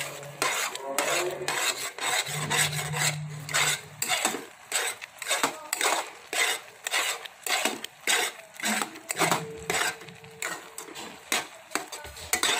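A long metal spoon stirring and scraping thick, crumbly khoa-like bauli around the bottom and sides of a metal kadai, in rhythmic strokes about two or three a second. The mixture is being kept from catching on the bottom of the pan.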